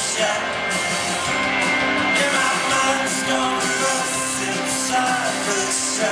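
Live rock band playing a song: electric guitars and a drum kit, with a sung vocal.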